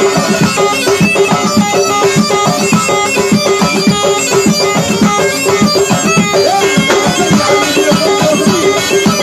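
Tunisian mezoued bagpipe playing an ornamented melody over a steady held note, with quick, continuous darbouka drum strokes.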